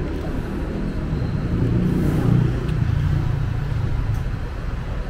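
Road traffic: a passing car's low engine and tyre rumble swells about two seconds in, then eases off.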